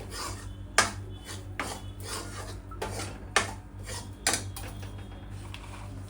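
Metal ladle scraping and stirring thick roasted gram flour and ghee in a metal kadhai, with several sharp clanks of the ladle against the pan.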